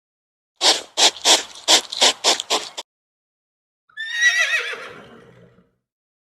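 A horse whinnying: one high, wavering call that falls in pitch and trails off. Before it comes a quick run of about eight short, rough bursts of sound.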